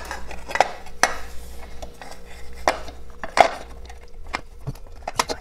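Polished aluminium magneto cowl being handled and fitted against a motorcycle engine's timing-side casing: irregular metal clicks and light knocks.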